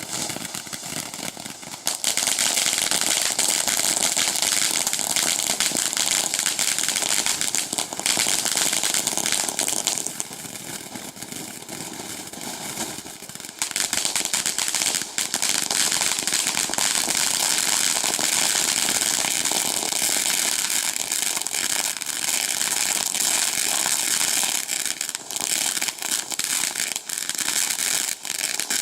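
Frog-shaped novelty ground fountain firework burning: a steady, loud hiss of spraying sparks laced with crackling. It dips for a few seconds about ten seconds in, then builds again.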